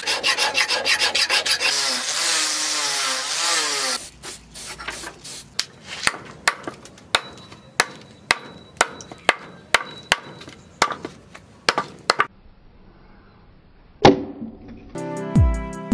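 Quick hammer blows on red-hot axe steel on a stake anvil, then a couple of seconds of harsh rasping noise. After that, a hatchet chops wood about once a second, shaping an axe handle from a plank, with a pause and one hard chop near the end. Music comes in at the very end.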